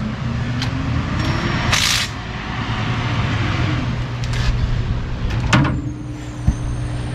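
A steady low machine hum, with a short sharp hiss about two seconds in and a click near the end.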